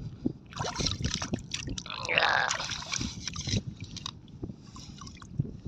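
Shallow water and wet mud sloshing and squelching as a bolo knife and a hand dig into a seagrass bed, with irregular small clicks and a louder slosh about two seconds in.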